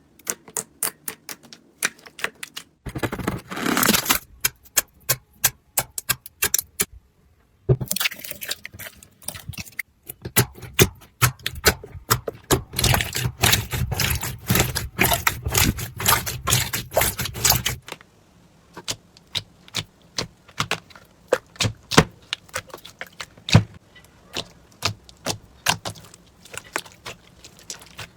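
Slime being squeezed and poked by hand, giving rapid crackling clicks and pops. The crackling is thickest in a short spell a few seconds in and a longer spell through the middle, then thins to scattered pops.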